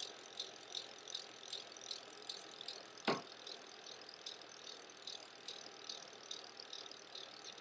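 Bicycle rear-hub freewheel ticking slowly and evenly, about three clicks a second, over a steady hiss, with one sharper click about three seconds in.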